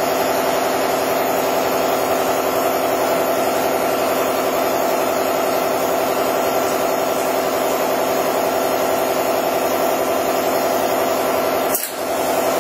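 Air compressor running steadily with a fast, even pulsing, building pressure for the mill's pneumatic power drawbar, which does not yet have enough air. The sound drops out briefly with a click near the end.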